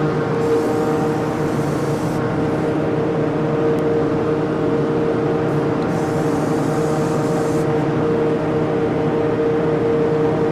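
Apollo Precision-5 Pro HVLP turbine and spray-booth exhaust fan running with a steady pitched drone. Twice, for under two seconds each, about half a second in and about six seconds in, the HVLP spray gun is triggered and a hiss of atomising air is added.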